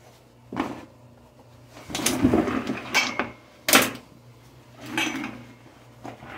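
A rubber-backed kitchen floor mat being lifted and folded: about five short knocks and scuffs as it brushes and drops against the tile floor. A faint steady hum runs underneath.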